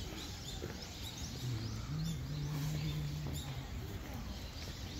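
Outdoor park ambience with birds calling, many short high chirps that slide downward, repeating throughout. A low steady hum comes in about a second and a half in and fades away shortly before four seconds.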